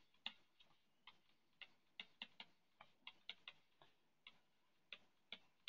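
Faint, irregular clicks of a stylus tip tapping on a tablet's glass screen during handwriting.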